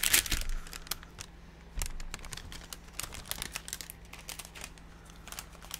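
Ink-soaked protective paper sheet being peeled up and handled, crinkling in a string of sharp crackles, loudest at the start and again about two seconds in.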